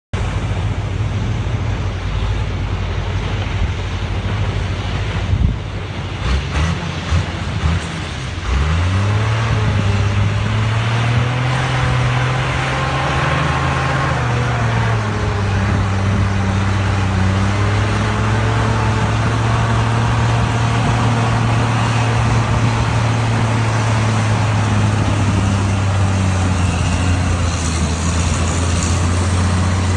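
Heavy engine running with a steady low hum. About eight seconds in its pitch rises as it revs up, eases down a little around fourteen seconds, and then holds steady.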